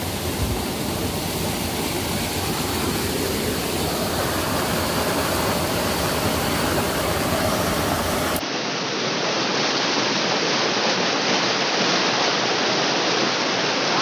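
Steady rush of water tumbling over rocks in a mountain stream. About eight seconds in it cuts to another, thinner-sounding take of the same kind of rushing water.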